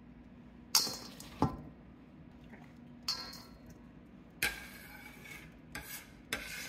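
Metal bench scraper scraping chopped chicken across a wooden cutting board and into a stainless steel bowl: about six short scrapes and knocks, spaced irregularly, the sharpest near the start.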